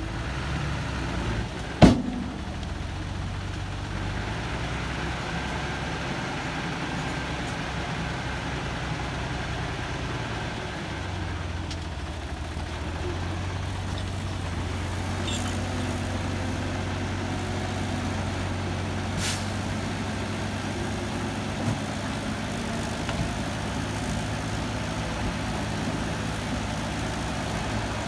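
Heavy diesel engine of construction machinery running steadily, with a sharp loud knock about two seconds in and a fainter click later on.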